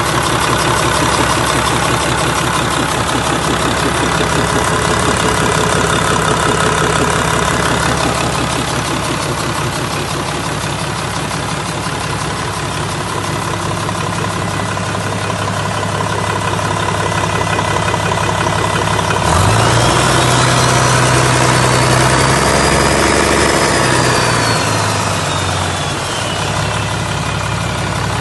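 1997 Mitsubishi 6D16-2AT3 inline-six turbo diesel engine running on a test stand, idling steadily. About two-thirds of the way through it is revved up, held for a few seconds, then let back down to idle, with a high whistle rising and falling along with it.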